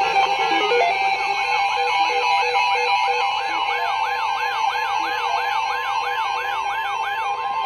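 Several weather-radio receivers sounding their alert alarms together, which signals an incoming severe thunderstorm warning. A steady high alert tone runs under a siren-like whoop that rises and falls about three times a second, with other warbling and steady beeping tones layered above.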